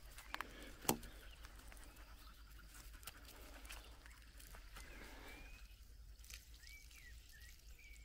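Quiet outdoor ambience: a few sharp clicks in the first second, then faint short bird chirps in the second half.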